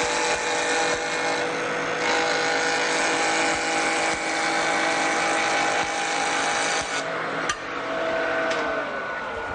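Jointer's spinning cutter head shaving the edge of a board pushed through it in one continuous pass, a steady machine whine with a dense cutting noise. About seven seconds in the cutting stops, there is a sharp click, and the whine begins to sink slowly in pitch as the machine winds down.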